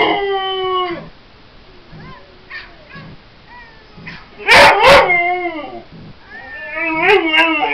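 A dog howling in drawn-out, wavering cries, broken by two sharp barks about halfway through, then howling again near the end.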